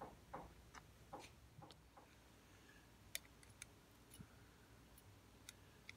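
Near silence, with faint light clicks and taps of small brass clock parts being handled; the sharpest clicks come a little after three seconds in.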